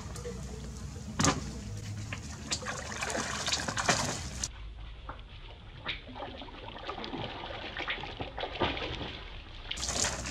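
Water splashing and sloshing in a tarp-lined tank as a macaque climbs in and swims, with irregular sharp splashes, the loudest about a second in and again near four seconds in.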